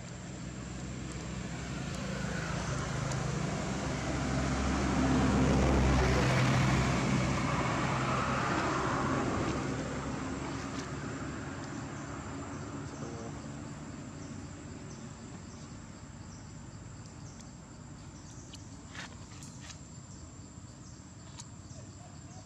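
A motor vehicle passing by: its engine and road noise grow louder to a peak about six seconds in, then fade away. A faint steady high tone runs underneath throughout.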